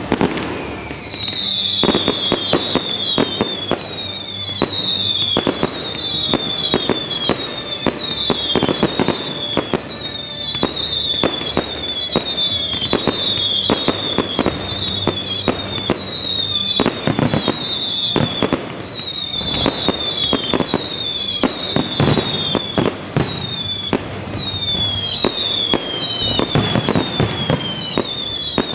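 Fireworks display in a dense, continuous barrage of bangs, with high whistling tones that fall in pitch and repeat about once a second.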